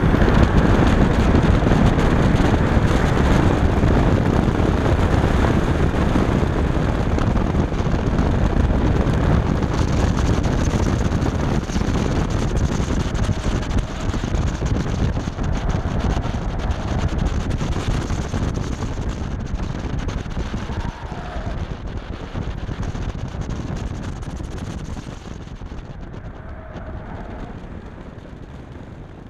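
BMW F10 535i's turbocharged straight-six pulling hard through a timed autocross run, mixed with heavy wind noise on the microphone. The noise eases off over the last few seconds as the car slows.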